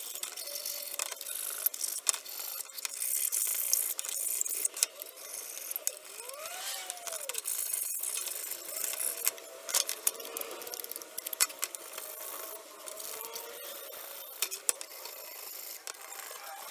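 3D-printed plastic parts being handled and fitted together by hand, played back sped up eight times, so the clicks, taps and scrapes come as a fast, high-pitched chatter.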